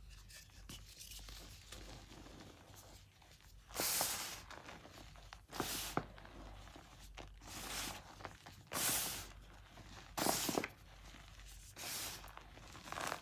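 Hands squeezing, pressing and rubbing loose crumbled chalk powder: a series of soft, hissing crunches and squeaks, one every second or two.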